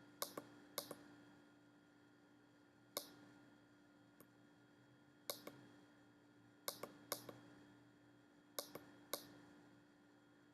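A small pushbutton on a breadboard clicking as it is pressed and released to key Morse code: clusters of sharp clicks, often in pairs, with pauses of a second or more between groups, which mark the spaces between letters and words. A faint steady hum runs underneath.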